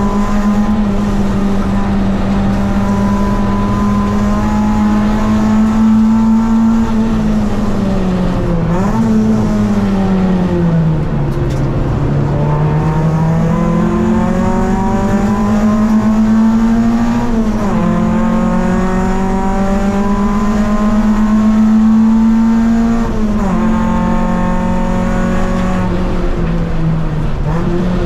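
Race car engine heard from inside the cabin, running hard at high revs. The pitch drops suddenly at gear changes about a third of the way in, around two-thirds in and near the end. In the middle it sinks slowly as the car slows, then climbs again as it accelerates.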